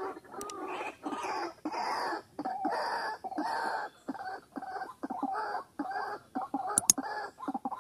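White-breasted waterhen calling: a long series of harsh, croaking notes that start drawn out and grow shorter and quicker. A sharp double click sounds near the end.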